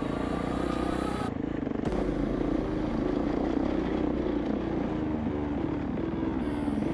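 KTM 690 Enduro R's single-cylinder engine running under way on a dirt trail, its pitch rising and falling a little with the throttle. The tone changes briefly about a second and a half in.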